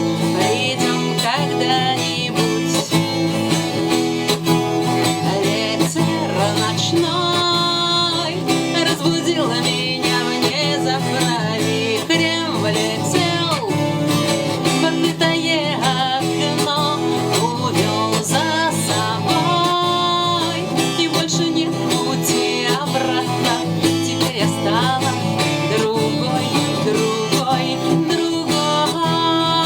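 Acoustic guitar strumming a steady accompaniment while a woman sings the song's melody in long, wavering held notes.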